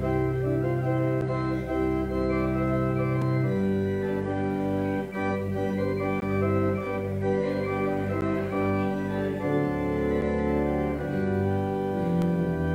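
Church organ playing held chords over a pedal bass line, the harmony moving every second or so.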